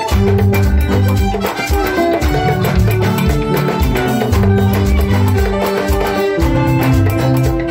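Live band playing amplified dance music: keyboard and drum kit over a deep bass line, with regular drum and cymbal hits keeping a steady beat.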